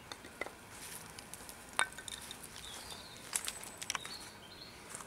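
Light knocks and clicks of wooden pieces being handled and set down on a tree-stump chopping block, the sharpest about two seconds in and a few more about a second and a half later.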